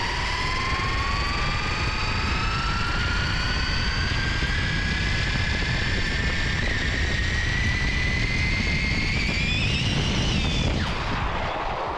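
3D-printed RC car's electric motor and drivetrain whining at speed on a 4-cell LiPo, the pitch rising steadily for about ten seconds as it accelerates, then breaking off, over a constant rushing noise.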